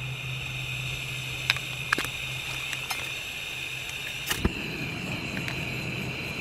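Gas hissing steadily from a hose-fed camp stove burner, with sharp scrapes of a knife on a ferro rod at about one-second intervals. A louder strike a little over four seconds in lights the gas, and the burner then runs with a low rushing sound under the hiss.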